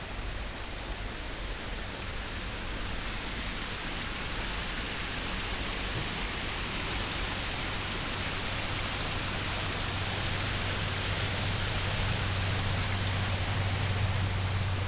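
Steady rushing hiss of water from a small rock waterfall, growing gradually louder, with a low rumble under it that strengthens in the second half.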